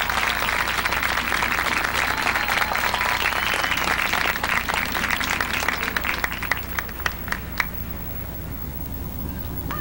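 Large stadium crowd applauding, the clapping dying away after about five seconds to a few scattered claps near the end.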